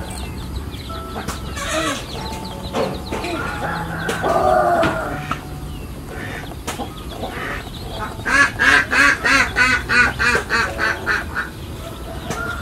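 Poultry calling over background music: one loud curving call about four seconds in, then a fast run of about a dozen short calls, roughly four a second, in the last third.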